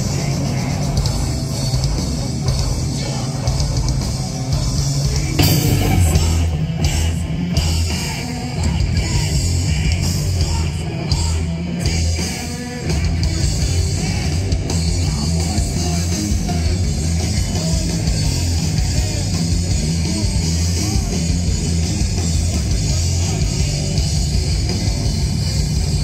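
Live heavy rock band playing loud, with distorted electric guitars and a drum kit. The sound changes abruptly about five and a half seconds in, as a different performance takes over.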